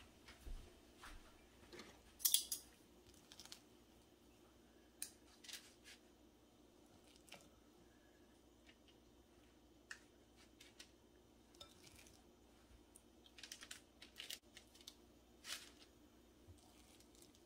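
Quiet, scattered scrapes and clicks of metal spoons scooping cookie dough and pushing it off onto a parchment-lined baking sheet, the loudest about two seconds in, over a faint steady hum.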